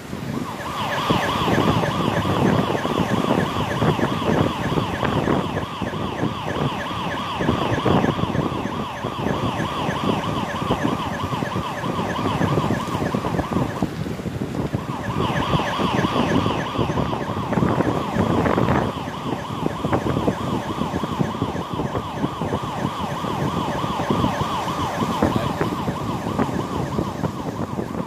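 Police siren sounding a fast warble, cutting out for about a second halfway through and then starting up again, over heavy wind noise on the microphone.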